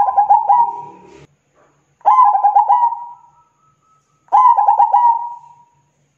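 Zebra dove (perkutut) cooing: three phrases of quick, staccato coos about two seconds apart, each phrase lasting a little over a second.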